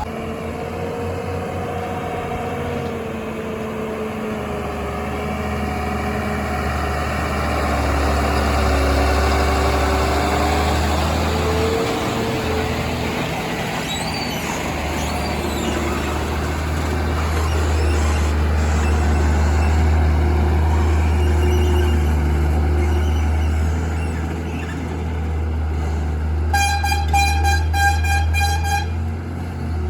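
Heavy diesel engine running steadily under load, its pitch wavering. Near the end a vehicle horn sounds in a quick series of short toots for about two seconds.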